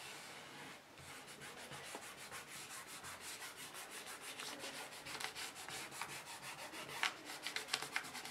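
Fingertips and knuckles rubbing over a sheet of paper, burnishing it against an inked feather beneath to pull a monoprint: quick, repeated scratchy strokes of skin on paper, faint at first and louder near the end.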